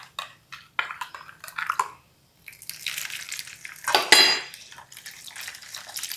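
A silicone spatula scrapes and clicks against a stainless steel mixing bowl. Then warm milk is poured from a glass jug into the bowl, splashing steadily onto the melted margarine and eggs, with a sharp ringing clink about four seconds in.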